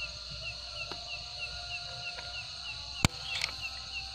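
A single sharp shot from a PCP air rifle about three seconds in, the loudest sound, with a brief fainter rattle just after it. Night insects chirp steadily throughout, about four chirps a second.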